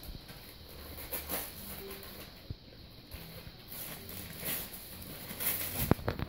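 Wrapping paper rustling and crinkling in short bursts as a small gift is torn open by hand, with a sharper knock near the end.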